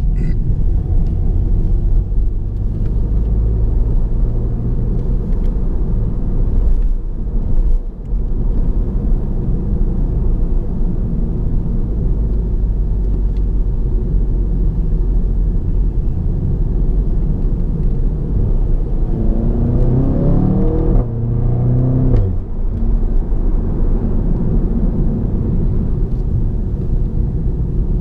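2015 Audi TT's 2.0 TFSI turbocharged four-cylinder engine and road rumble heard from inside the cabin while driving. About two-thirds of the way through, the engine note climbs in a rising tone under acceleration and then breaks off sharply at a gear change of the S tronic gearbox.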